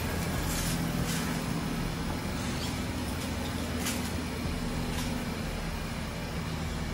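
A vehicle engine idling: a steady low hum, with a few faint ticks over it.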